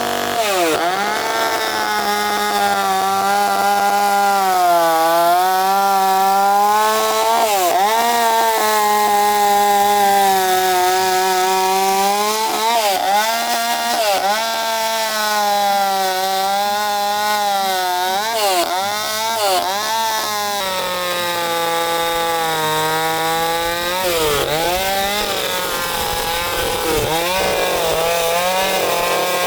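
Chainsaw running at high revs as it carves into a wooden log, its engine pitch dipping briefly again and again and coming back up as the blade bites and is eased off.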